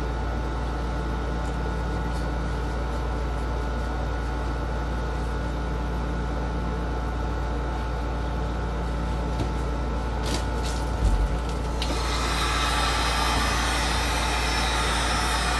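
A steady low hum, then a few clicks and a thump, and about twelve seconds in a heat gun switches on with a steady airy blowing noise, used to pop bubbles in freshly poured epoxy resin.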